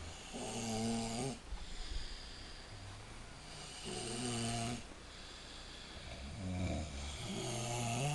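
Sleeping person snoring: long, pitched snores about every three and a half seconds, with a shorter one just before the last.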